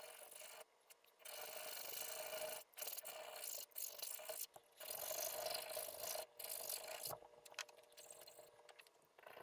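Hand file rasping across a small metal part clamped in a vise, in a series of long push strokes about one a second, fainter over the last couple of seconds. The file is rounding off the back of a lug on the part.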